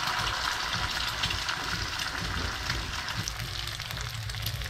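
An egg frying in hot oil in a pan on a gas burner: a steady sizzle with fine crackling.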